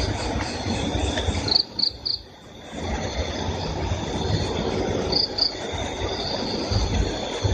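Crickets chirping steadily over a rough low rumble, with three short, higher chirps about a second and a half in and two more a little after five seconds. The whole sound drops away briefly around two seconds in.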